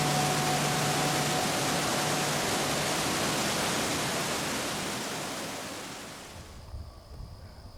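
Waterfall rushing as a steady, even roar of water that fades out over the last couple of seconds. It gives way to a quieter outdoor background with a faint steady high-pitched tone.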